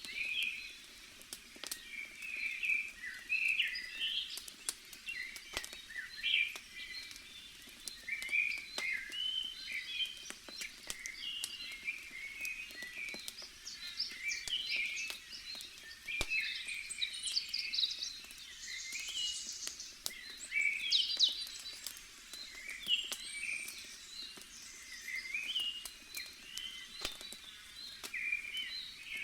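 Small birds chirping busily with short, overlapping calls, over the sharp, scattered pops of a crackling campfire.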